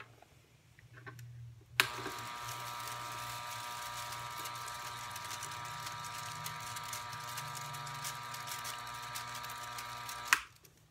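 Storz & Bickel Volcano vaporizer's air pump switched on with a click about two seconds in, running steadily with a hum and airflow hiss as it blows heated air through the filling chamber into the balloon bag, then switched off with a click near the end.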